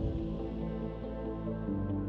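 Calm ambient background music of soft, sustained chords, shifting to a new chord near the end.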